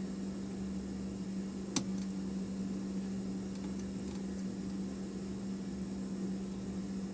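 Lock picks working the pins of an American 5200 padlock: one sharp click a little under two seconds in and a few faint ticks, over a steady low background hum.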